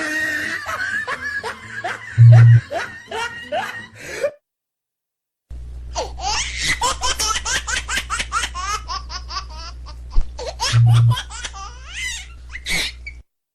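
Two laughing sound effects: about four seconds of hearty laughter that stops, then after a second of silence a longer, high-pitched run of rapid laughter that ends just before the close.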